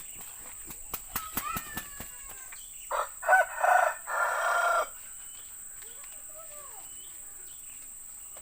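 Harsh, loud squawking calls of a white-breasted waterhen lasting about two seconds, starting about three seconds in, after a quick run of sharp clicks and knocks.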